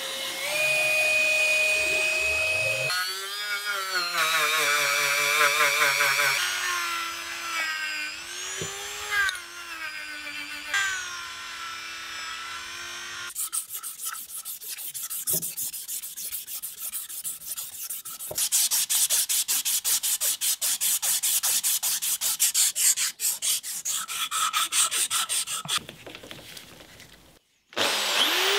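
Squeaking of a twisted-wire brass brush worked through a hole in a brass bayonet grip, with pitch rising and falling as it moves. After that, an abrasive strip is pulled rapidly back and forth around the ribbed brass grip, polishing it, a dense rubbing rasp that gets louder partway through. Just before the end, a cordless drill with a polishing wheel spins up with a rising whine.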